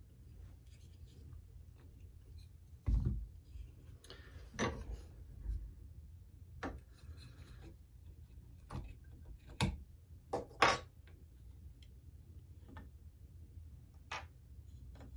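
Scattered light metallic clicks and taps as a pin punch and a steel AR-10 bolt are worked in a wooden vise jig to free the ejector roll pin, about nine separate clicks at irregular intervals.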